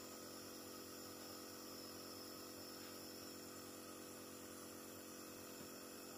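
A steady, faint hum with no change, made up of several low tones over a light hiss.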